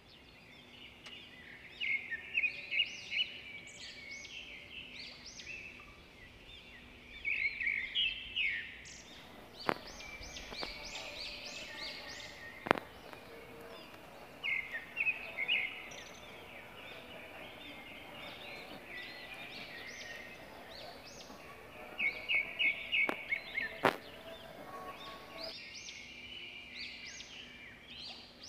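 Small birds chirping in repeated bursts of quick, high chirps, with three sharp clicks in between.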